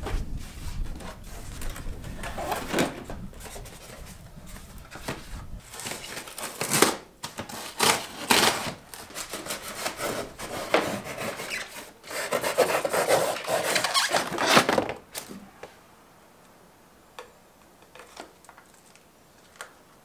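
A large cardboard box being cut open with a blade and its flaps pulled apart: irregular scraping and rubbing of cardboard with sharp knocks. It goes much quieter after about fifteen seconds, leaving a few light clicks.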